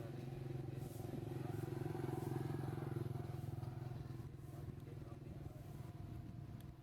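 A motor vehicle engine running, swelling to its loudest about two to three seconds in and then fading.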